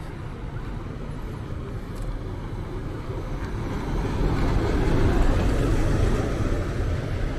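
City bus driving past close by, its engine and tyre noise swelling from about three seconds in, loudest about five seconds in and easing off near the end, over steady street noise.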